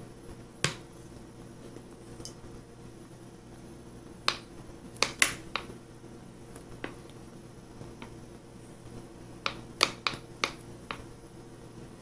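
About a dozen sharp, short clicks or taps at irregular intervals, some in quick clusters near the middle and again near the end, over a faint steady hum.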